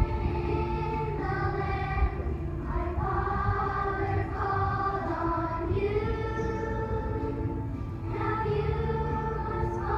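Children's choir singing a slow song in long held notes.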